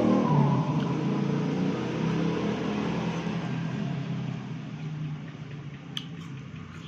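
Close-up chewing of food, over a steady low hum, with a sharp click about six seconds in.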